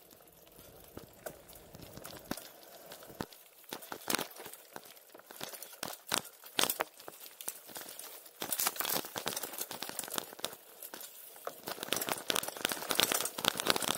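Gravel bike rolling over a dry, stony dirt track: irregular crunches, clicks and rattles from the tyres and bike jolting over bumps, getting busier about halfway through.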